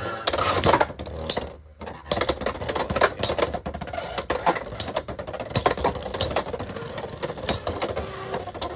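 Two Beyblade X tops, Scorpio Spear 9-60 Gear Point and a Nightmare, battling in a plastic stadium: a dense, irregular clatter of plastic-and-metal clicks as they spin, skid and collide, with a brief lull about a second and a half in.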